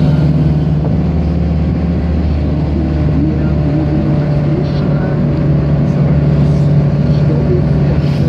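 Car driving at steady speed, heard from inside the cabin: a steady low engine and road hum.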